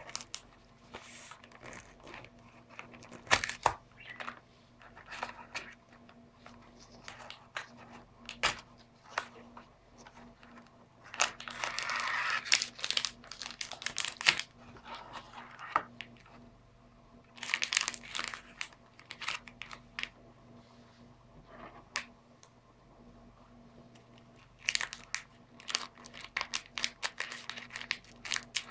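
A cardboard Pocky box being opened by hand, with sharp clicks and tearing, then its plastic inner packet crinkling in clusters as it is pulled out and handled. Near the end, scissors cut the packet open.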